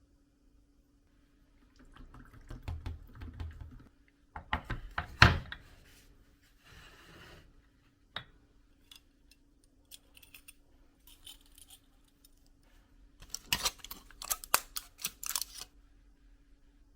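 Small objects being handled: a string of clicks, taps and light clatter in bursts, loudest about five seconds in and again near the end, over a faint steady hum.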